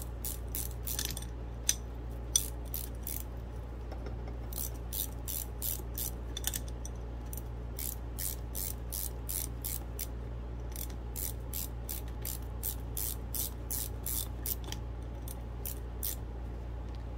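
Ratcheting wrench clicking in several quick runs with short pauses between them as it tightens the lock nut on the adjuster of a Saginaw power steering gear box, locking in the adjustment.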